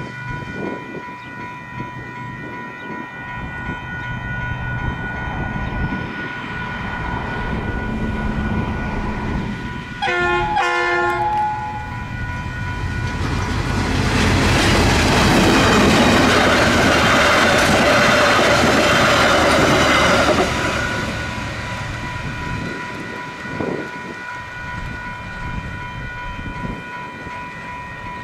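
Level-crossing warning bells ring steadily while a diesel-hauled train approaches. The train sounds its horn about ten seconds in, then passes through the crossing, loudest from about 13 to 21 seconds before fading.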